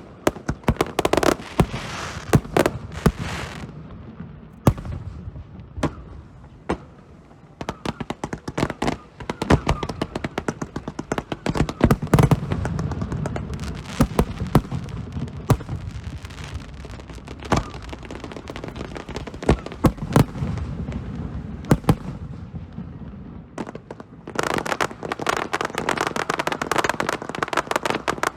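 Fireworks show: dense rapid crackling and bangs, thinning to scattered single sharp bangs over a low rumble, then a dense crackling barrage again near the end.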